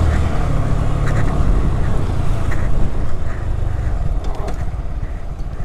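Honda Grom's 125 cc single-cylinder engine running as the bike rides along a wet street, under heavy wind rush on the microphone and tyre noise. The low engine hum fades after about a second and a half, leaving mostly wind and road noise, which ease slightly near the end.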